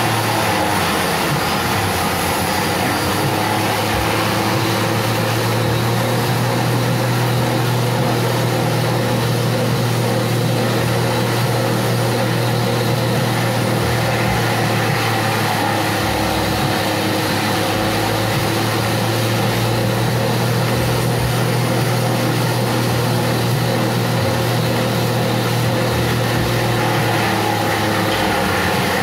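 Motor-driven forage chopper (chaff cutter) running steadily at speed while green stalks are fed into it and chopped. The result is a loud, constant machine drone with a strong low hum.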